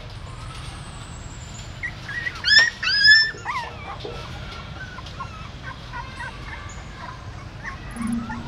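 Newborn puppies whimpering and squealing. Two loud, high, wavering squeals come about two and a half and three seconds in, as a puppy is picked up in its mother's mouth, followed by scattered fainter whimpers.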